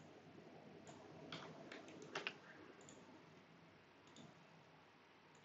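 A few faint computer mouse clicks, scattered over the first half, in near silence.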